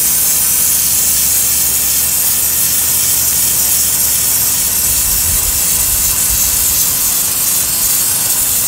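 Sun Joe SPX3000 electric pressure washer firing a pencil jet from its 0-degree tip onto concrete: a loud, steady hiss of high-pressure water with a steady hum underneath.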